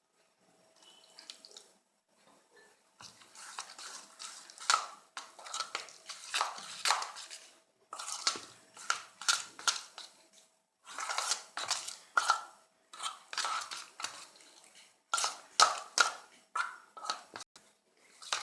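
A spoon stirring thick besan (gram-flour) batter in a bowl, quick repeated strokes that scrape and click against the bowl, with a few short pauses, while water is worked in a little at a time to make the batter smooth.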